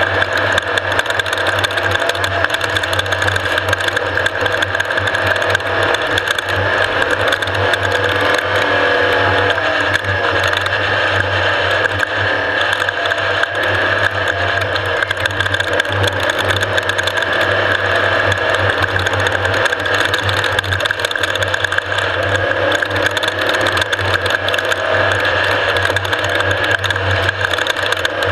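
Off-road race vehicle running hard and steadily: a constant engine and drivetrain drone with dense rattling over it.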